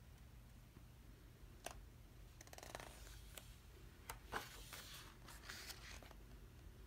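Faint paper rustling and a few light clicks of a photobook page being turned by hand, starting about a second and a half in, over a low steady room hum.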